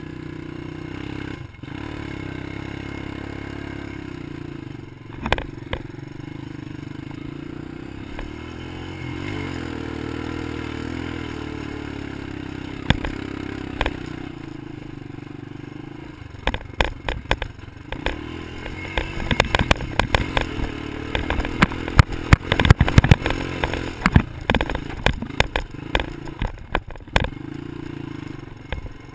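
ATV engine running under the rider, heard from a camera mounted on the machine, its pitch rising and falling briefly about ten seconds in. In the second half, rapid clattering knocks come over the engine, loudest about two-thirds of the way through.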